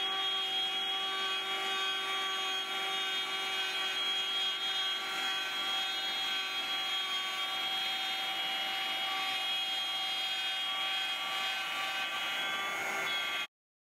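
CNC router spindle running with its bit cutting through a wooden sheet: a steady, many-toned whine over the noise of the cut. It stops abruptly near the end.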